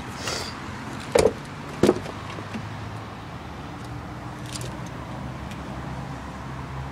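Two sharp clunks from a 2003 BMW M5's doors, about a second in and again a moment later, as the doors are worked to get to the rear seat. Then a low, steady background hum.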